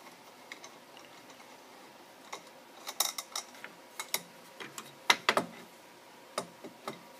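Scattered small metallic clicks and clinks as the wing nuts of an aluminium hammer shank clamp are unscrewed and the clamp parts handled. The clinks thicken about three seconds in, with the loudest cluster a little past five seconds.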